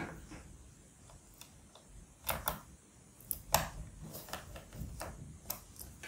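Plastic bottom service cover of a laptop clicking and knocking as it is pressed and slid back into place: several short, sharp clicks, a pair a little after two seconds, another pair around three and a half seconds, and one more near the end.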